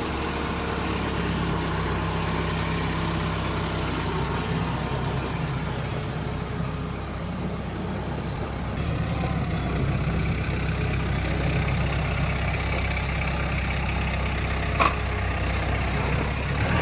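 Engine of the fork-equipped machine carrying sawn slabs, running steadily at a low, even speed, with one sharp click or clank near the end.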